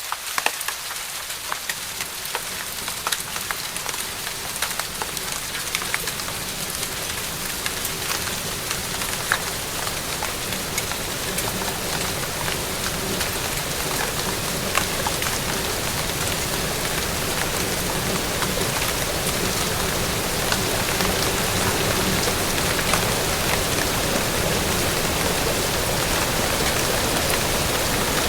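Steady rain falling, with many close individual drops ticking on a surface over an even hiss. The rain grows gradually louder.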